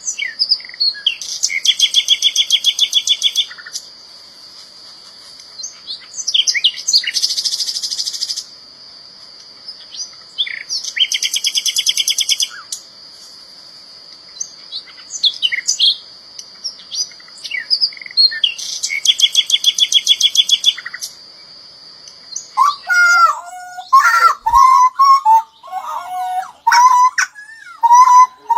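Small songbirds singing: four bursts of fast repeated trilling notes, each about two seconds long, with scattered sharp chirps in between, over a steady high ringing tone. From about 23 seconds in, a lower, fuller whistled song with gliding notes takes over.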